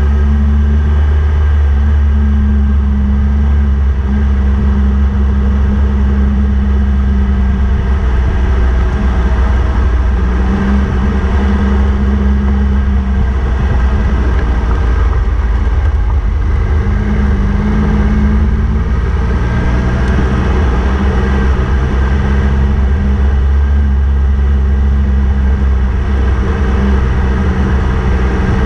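Triumph Tiger 1200 motorcycle's three-cylinder engine running steadily at a cruise, heard from on the bike itself, with a constant rush of wind and road noise.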